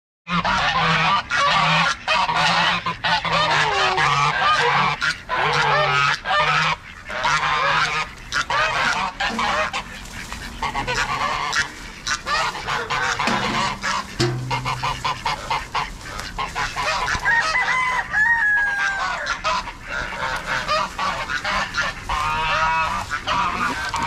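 A flock of domestic geese honking loudly, the calls overlapping densely for the first ten seconds or so and then thinning out to scattered honks.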